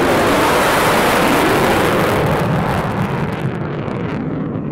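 Jet aircraft noise, a loud rushing roar that fades as it passes away, its high end dying off first near the end.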